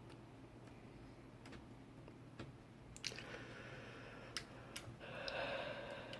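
Faint rustling and a few small scattered clicks of fingers handling the untwisted copper wire pairs of a Cat5 cable, with two short spells of rustling about three and five seconds in.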